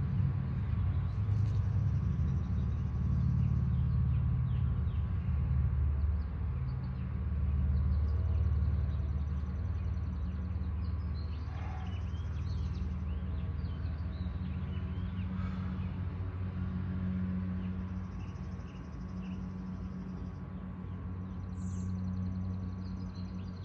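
Steady low rumble with a faint constant hum above it, easing off slightly in the second half.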